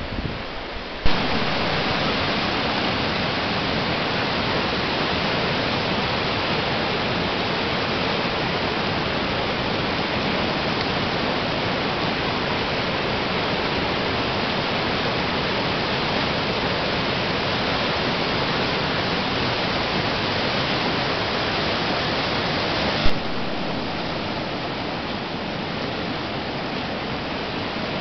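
Whitewater river rapids: a steady, full rush of fast water over rocks. The sound jumps louder with a click about a second in, and eases off slightly with another click near the end.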